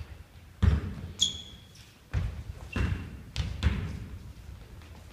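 Basketball bouncing on a hardwood gym floor: about five separate thuds, the loudest about a second in. Short high squeaks, like sneakers on the floor, come in between.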